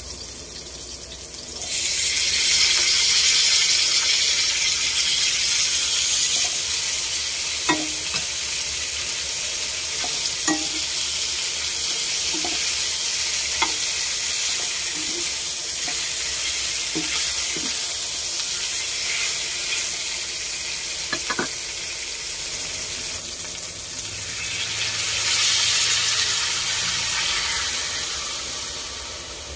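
Beef slices sizzling loudly in a hot wok with sautéed garlic and onion, the sizzle starting suddenly a couple of seconds in as the meat goes into the pan. A utensil clicks against the pan several times, and the sizzle swells again near the end, then dies down.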